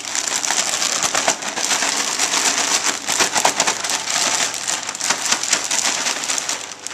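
Plastic bag of butter-coated bread cubes and spice mix being shaken hard: continuous crinkling of the plastic with the cubes tumbling and pattering inside.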